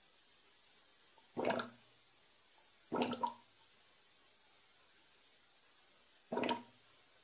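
Clear S-shaped airlock on a fermenting beer gurgling three times, the second a quick double, as carbon dioxide from active fermentation pushes through its water.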